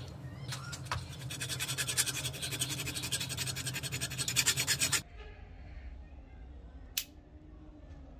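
Hand file scraping rapidly back and forth over the edge of a small steel blade clamped in a bench vise, several strokes a second, stopping abruptly about five seconds in. A single sharp click follows about two seconds later.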